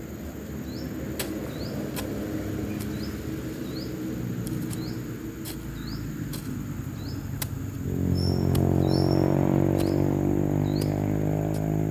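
A hoe chopping into soil in repeated strokes, heard as sharp knocks every second or so, over a short rising chirp that repeats about once a second and a steady high insect drone. A steady engine hum underneath comes up loud about eight seconds in.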